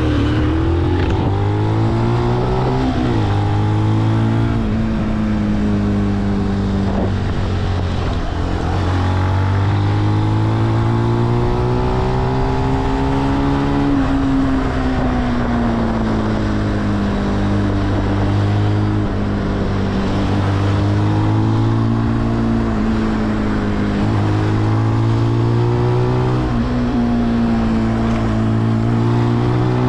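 Benelli BN125's 125 cc single-cylinder four-stroke engine running under way, heard from the bike. The revs climb and drop several times, with sudden drops like gear changes and slower falls as it eases off.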